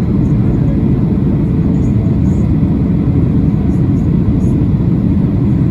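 Steady low cabin roar inside a Boeing 737-800 during its descent, the engines and airflow heard from an economy window seat.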